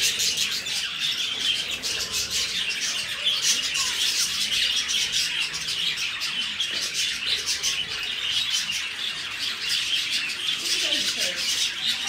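A flock of budgerigars chattering together, a dense, unbroken mix of many short high calls.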